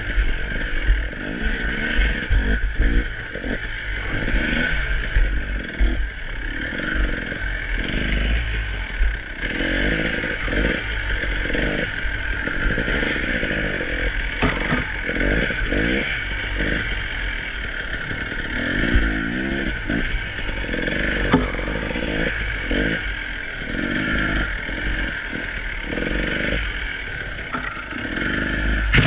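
2018 KTM EXC 300 TPI single-cylinder two-stroke enduro engine revving up and down repeatedly while riding rough ground, with frequent knocks and clatter from the bike over the terrain.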